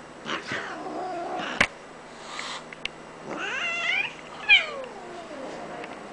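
Bengal kitten meowing over and over in drawn-out, cranky cries, the last one sliding down in pitch. A sharp knock about a second and a half in.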